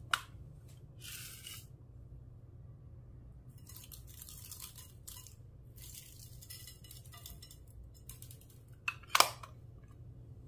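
Clear slime being worked and stretched by hand, making sticky crackling sounds in spells of a second or two, with two sharp pops near the end that are the loudest.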